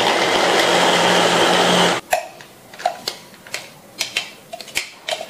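Wistec hand-held blender's chopper attachment running, its motor and stainless-steel blade whirring through onion in the bowl for about two seconds before cutting off sharply. After that come scattered clicks and scrapes as a spoon scrapes the chopped onion out of the plastic bowl onto a steel plate.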